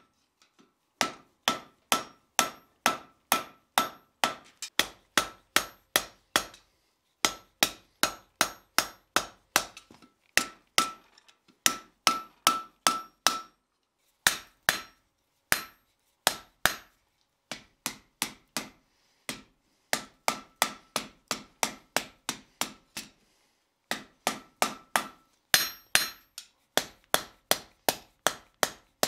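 Hand hammer striking the hot end of a steel bar on an anvil, forging it into a ball-shaped finial. The blows come in steady runs of about three a second with a few short pauses, and many of them ring with a clear tone from the anvil.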